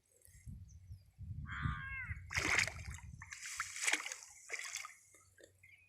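Water splashing and sloshing in several bursts, the loudest about halfway through. A short falling call comes just before the splashing begins, about a second in.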